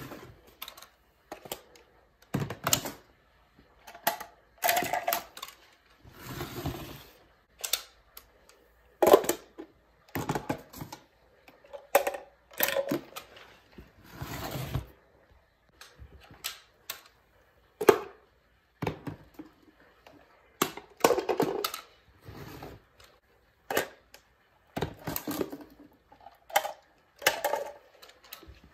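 Miniature plastic toy trash bins being picked up, tipped and set back down by hand, their contents dropping into a plastic wastebasket: a string of short clatters and knocks on a tile floor, with a few longer hissy rustles.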